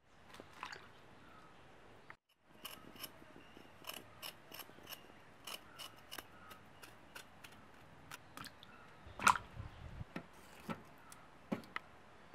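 Knife blade scraping the skin off a potato: a run of short, scratchy strokes, a few a second, with one louder thud about nine seconds in.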